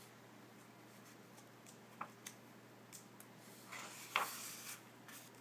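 A page of a hardcover picture book being turned by hand: a short papery swish about four seconds in, after a few faint taps.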